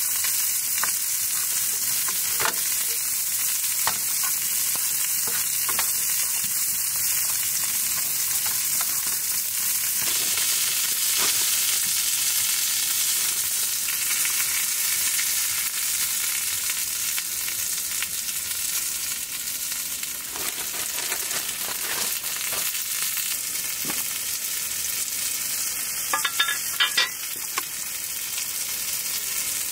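Food sizzling as it fries: a steady hiss with scattered small pops and clicks, and a quick cluster of louder clicks about 26 seconds in.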